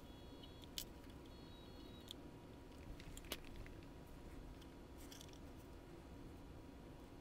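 A few faint clicks and taps of small plastic model-locomotive parts being handled, over near-silent room tone with a faint steady hum.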